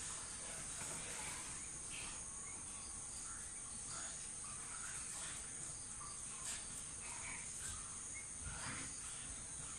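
Steady high-pitched drone of insects, with faint short chirps now and then.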